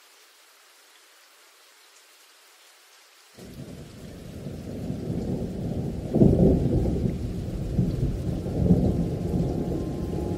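Low rolling rumble of thunder with rain. It cuts in abruptly about three and a half seconds in, after faint hiss, and swells louder twice, around six and nine seconds in.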